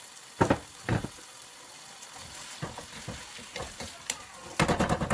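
Ground pork and vegetable filling sizzling steadily in a stainless steel pan while being stirred, the spatula scraping and knocking against the pan a few times and in a quick flurry near the end.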